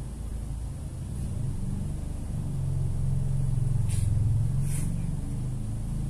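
A low engine-like rumble that swells to its loudest about four seconds in and then eases off, with two short hissy clicks near the peak.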